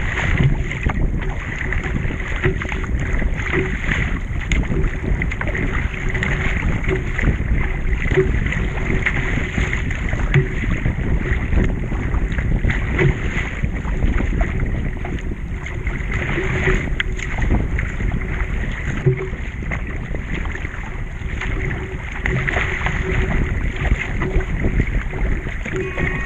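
Surf ski kayak paddled on open ocean: water rushing and splashing along the hull with a light knock about once a second from the strokes, and wind buffeting the microphone.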